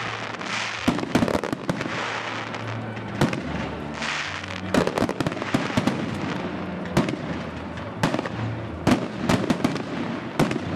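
Aerial fireworks display: shells bursting in an irregular string of sharp bangs, with stretches of crackling hiss from the stars, most plainly about half a second and four seconds in.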